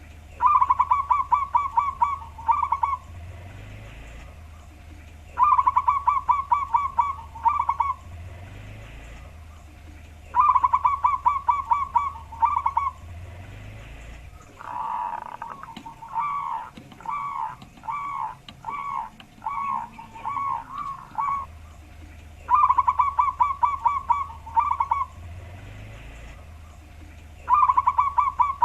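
Zebra dove (perkutut) cooing in repeated bouts, each a quick run of deep coo notes lasting about two to three seconds, coming about every five seconds. In the middle comes a longer, slower run of more spaced coos. A low steady hum sits underneath, dropping away during the slower run.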